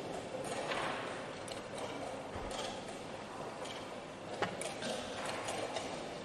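Steady room noise with a single sharp click about four and a half seconds in.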